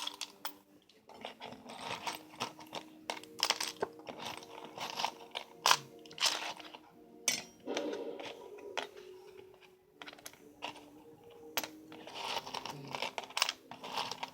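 Small metal toy-train parts clicking, rattling and scraping as they are handled and fitted together on a bench, in quick irregular clicks.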